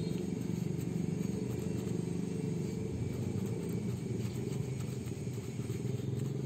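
A steady low rumble, like a running engine or passing traffic, with faint strokes of a paintbrush dabbing waterproof coating into fibre mesh on a metal roof.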